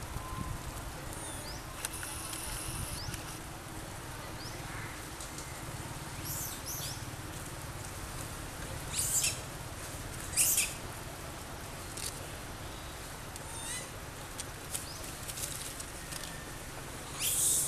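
Small birds chirping in short, high bursts a few seconds apart, the loudest about halfway through, over a steady low outdoor rumble.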